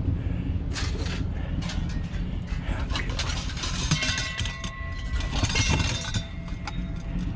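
Scrap metal pieces clanking and clattering as they are handled and dropped, with one piece left ringing for a few seconds about four seconds in. A steady low rumble runs underneath.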